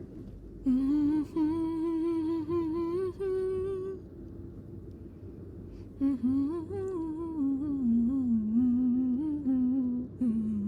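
A woman humming a melody in two phrases, the second starting about six seconds in, over a steady low background rumble.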